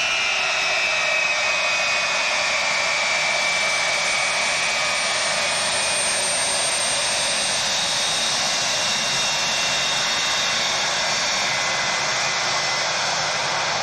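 Boeing 707's four jet engines running as the aircraft moves past, a loud steady rush. High whining tones drop in pitch during the first couple of seconds, then hold.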